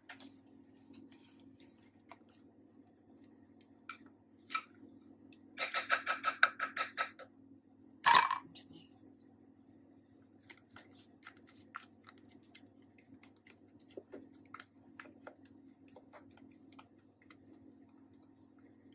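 Silicone spatula scraping cake batter from a glass mixing bowl into a paper-lined baking tin: faint scattered scrapes and soft taps, a quick run of rapid clicks about six seconds in, and a single louder sharp knock about two seconds after it.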